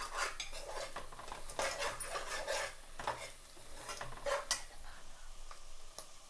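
A spoon stirring and scraping in a cooking pan, with irregular clinks and scrapes against the pan, as fried onions and chili powder are turned over.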